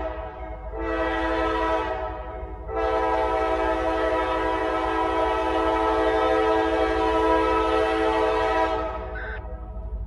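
Diesel freight locomotive's multi-chime air horn sounding a short blast about a second in, then a long blast of about six seconds: the short-long close of the grade-crossing warning signal.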